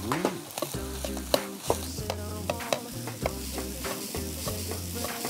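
A metal ladle stirs and scrapes cold rice and egg around a hot wok, sizzling, with frequent sharp clicks and scrapes of the ladle against the pan. This is egg fried rice being stir-fried just after the rice goes in.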